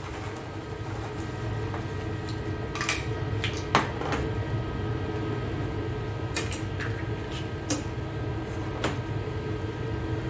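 A cooking utensil clinking against a stainless steel saucepan of seafood in tomato sauce as it is stirred and shaken: scattered sharp clicks, loudest a few seconds in. Under them runs a steady hum with a few held tones.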